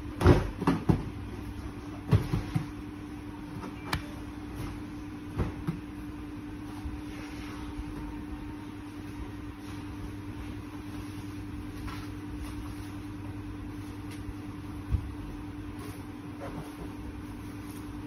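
A steady low hum throughout, with a cluster of sharp knocks and taps in the first few seconds and one more single knock a little before the end.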